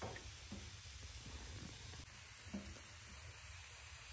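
Washed mushrooms sizzling faintly on the hot top of a wood-burning stove as the heat drives the water out of them, with a couple of soft taps.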